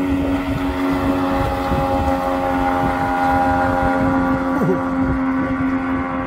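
Outboard motor with a water-jet drive running steadily at high speed, pushing a RIB loaded to about 600 kg along on the plane, with the rush of water and wind under it. The engine pitch holds even throughout.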